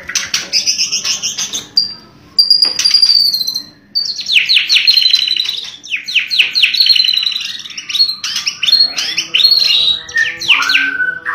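White-rumped shama song: clear whistles and fast volleys of sharp, falling notes, with a lower, held note near the end. The song is used as a lure to bring shamas into breeding condition.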